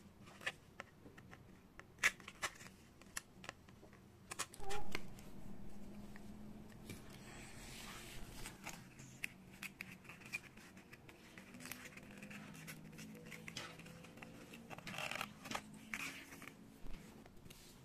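Handling noise of 3D foam-board puzzle pieces: scattered clicks, taps and light scrapes as pieces are pushed out of their sheets and fitted together. A short squeak a little under five seconds in is the loudest sound.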